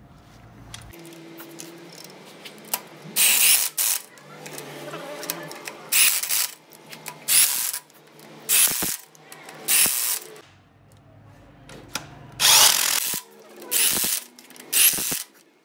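A power tool run in short bursts, about eight times with brief pauses between them.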